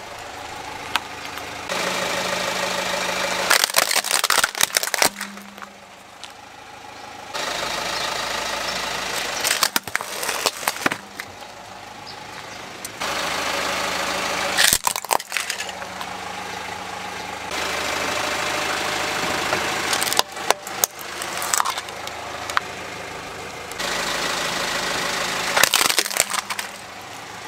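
A car's tyre rolling over plastic toys and crushing them, with clusters of sharp cracks and crunches about five times, a few seconds apart. Between the crushes the car's engine runs steadily.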